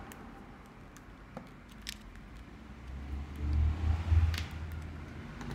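Handling noise as a mobile phone is picked up and swapped on a workbench: a few light clicks, and a low rumble a little past halfway.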